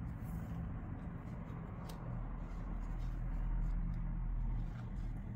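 Soft rustling of cotton macrame cord being handled and pulled into double half hitch knots, with a faint click about two seconds in, over a steady low hum.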